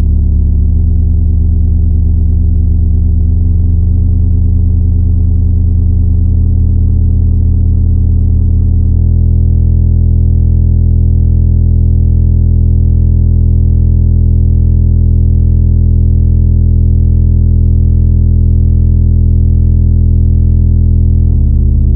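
Loud, deep synthesizer drone: sustained electronic tones that step to new pitches a few times in the first nine seconds, then hold steady until another shift near the end.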